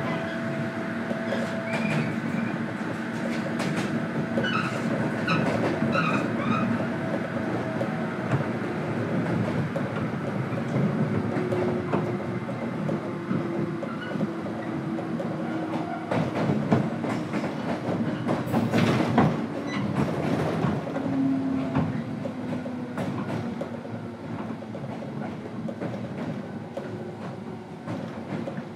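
Running noise inside a JR Kyushu 103 series electric train's motor car: traction motor hum and wheel clatter over the rails. A low motor tone slowly falls in pitch in the middle, and the noise eases off over the last few seconds.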